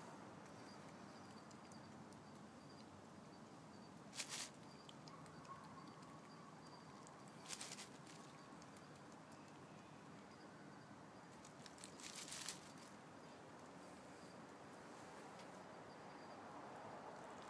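Near-quiet hiss broken by three brief crackling rustles of dry leaves, about 4, 7.5 and 12 seconds in, as a young possum feeds and shifts among them.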